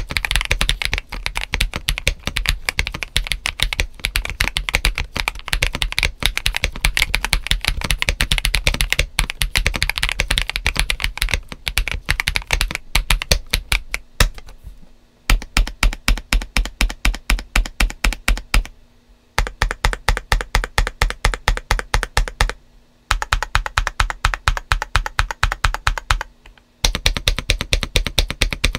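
GAS67 mechanical keyboard built for a poppy, clacky sound (Akko CS White switches, ABS doubleshot keycaps, PE foam and tape mods) being typed on: fast, dense typing for about the first half, then runs of quick, evenly spaced keystrokes, about six a second, with short breaks between runs.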